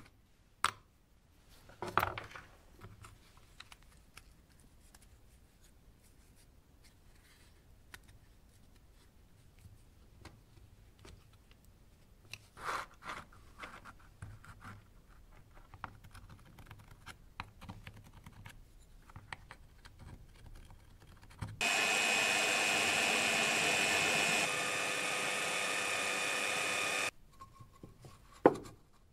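Scattered light knocks and handling of small parts on a wooden bench, then about two-thirds of the way through an electric drill runs steadily for about five seconds, boring into plywood, dropping a step in level partway through.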